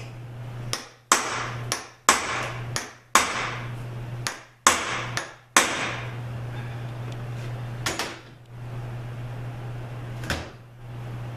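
A hammer striking metal parts of a Subaru 4AT automatic transmission: five sharp blows about a second apart, each ringing briefly, then a few lighter taps. A steady low hum runs underneath.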